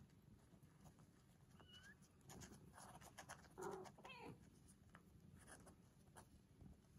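Faint scratchy rustling of British shorthair kittens, about three weeks old, scrambling over each other and their nursing mother, fur and claws scuffing on the floor. A small squeak and a short mew come about halfway through.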